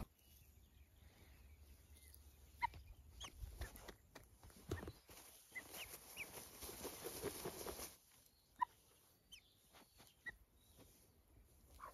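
Young helmeted guineafowl giving short, high chirps, about a dozen scattered through, faint. In the middle, a few seconds of soft rustling as a hand strokes its feathers.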